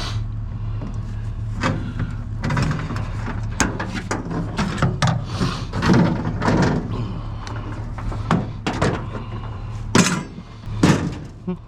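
Vehicle engine idling with a steady low hum, overlaid by a run of knocks and clunks, two sharp ones near the end.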